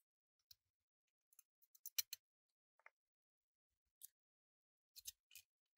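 Near silence broken by scattered light clicks and ticks: a quick cluster about two seconds in, single clicks around three and four seconds in, and a few more about five seconds in.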